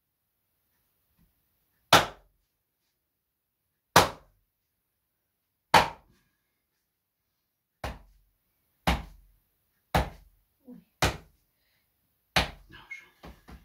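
Percussion-technique strikes in manual spinal therapy: the therapist's fist striking his other hand laid on the patient's back, eight sharp thwacks. The first three come about two seconds apart, then the strikes quicken to about one a second, with one fainter knock among them.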